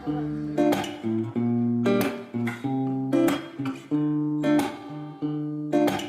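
Background music: guitar strumming chords, each chord struck sharply and left to ring for about half a second to a second before the next.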